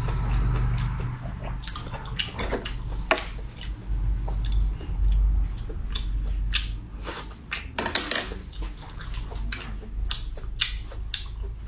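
Close-up eating noises: irregular clicks and taps of utensils against a dish mixed with wet mouth sounds, over a low steady hum.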